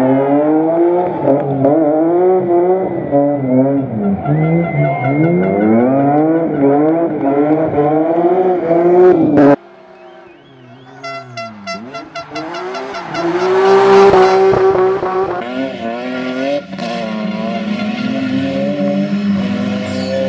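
BMW rally car's engine revving hard, its pitch climbing and dropping again and again through gear changes and lifts. About halfway through the sound cuts off suddenly. A second, quieter pass then builds as the car approaches and revs through the gears, loudest about two-thirds of the way in.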